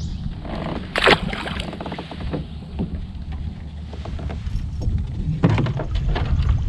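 Knocks and clicks of gear being handled in a fishing kayak, with a sharp knock about a second in and another near the end, over a steady low rumble.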